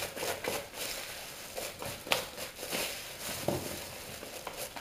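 A spoon scraping and clicking irregularly in a plastic tub as damp, alcohol-wetted powder is stirred and pressed together, with one sharper knock about two seconds in.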